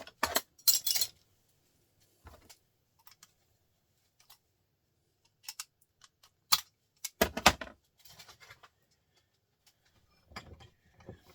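Scattered sharp clicks and metallic clinks of a hand tool working the casing of a small printer motor as its top is pried off, with a cluster of louder knocks about seven seconds in.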